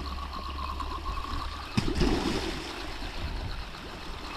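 Fixed-spool fishing reel being wound in, a steady whirr that stops with a click a little under two seconds in. The line has suddenly gone heavy, which the angler takes for weed or a fish. A low rumble underneath.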